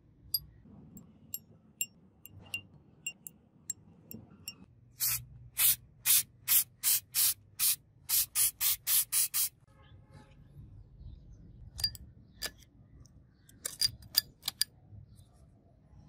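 Aerosol spray paint going on in about a dozen short, quick bursts, a little under half a second apart; these are the loudest thing heard. Before and after them come light, sharp metallic clinks of small metal pieces being set down and handled.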